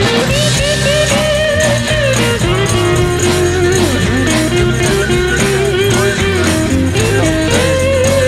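Rock music as a soundtrack: an instrumental passage with a guitar playing held and bending notes over a steady bass line, before the singing comes in.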